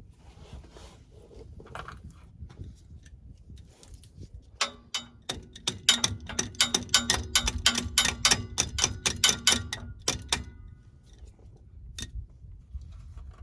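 Hand tool working the bolts of a Ford E350's front driveshaft: a quick run of sharp metallic clicks, about five a second, starting about five seconds in and lasting about six seconds, with a faint ring under them.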